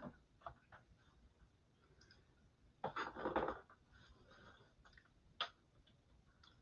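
Quiet room with a few faint, short clicks and a brief soft rustle about three seconds in.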